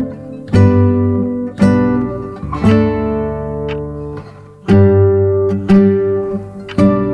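Background music: an acoustic guitar strumming chords, struck about once a second, each chord ringing and fading before the next.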